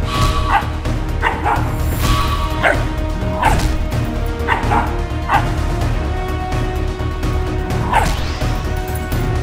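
Two puppies giving short, sharp play barks and yips, about one every second, as they wrestle, over background music with a steady beat.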